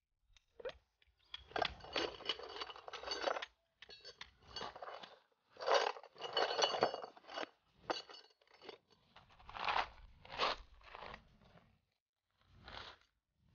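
Gravel crunching and scraping in irregular bursts under footsteps and the handling of tent gear, with a few light metal clinks.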